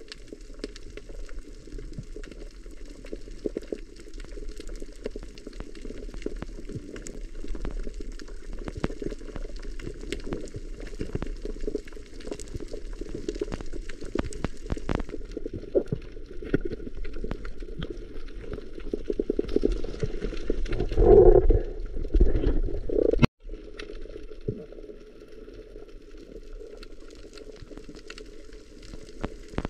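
Underwater sound through an action camera's housing: a muffled water rush with many small crackling clicks throughout. About two-thirds of the way in there is a louder bubbling surge, which cuts off abruptly.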